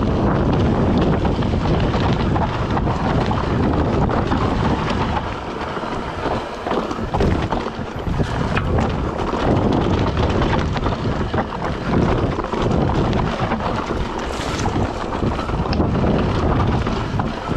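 Mountain bike descending a rocky dirt trail: wind rushing over the microphone, with constant rattling and knocking as the bike runs over rocks and roots.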